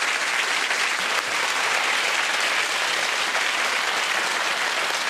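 Studio audience applauding steadily, dense clapping throughout.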